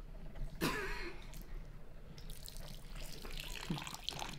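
Water poured in a thin stream from a plastic bottle held high, splashing into and around an open mouth, from about two seconds in. A short, loud voice sound about half a second in.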